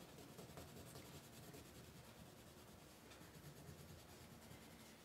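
Faint scratching of a crayon colouring in on paper, the strokes uneven and soft.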